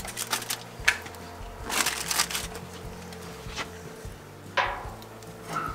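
Sheet of aluminium foil crinkling in several short bursts as it is folded and pressed into place by hand, the longest and loudest burst about two seconds in.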